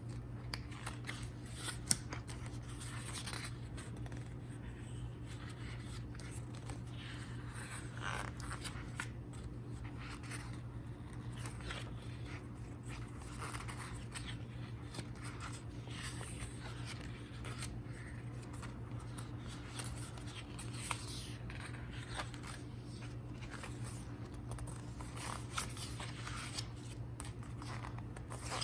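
Pages of a photobook being turned and handled: scattered light paper rustles and scrapes, with a sharp click about two seconds in, over a steady low hum.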